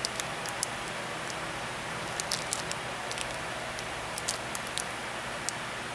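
Thin clear plastic bag crinkling in the hand around a small figure, a few faint, irregular crackles over a steady background hiss.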